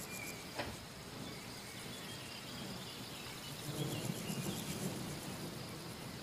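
Quiet background ambience with scattered, faint bird chirps. There is a single click just after half a second in, and a soft low rumble about four seconds in.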